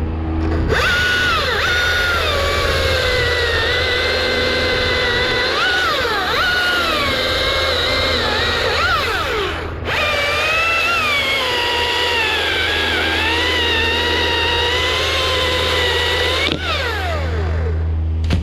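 Chainsaw running at full throttle and cutting wood, its pitch sagging and recovering under load. It stops for a moment about ten seconds in, starts again, and winds down with a falling pitch near the end.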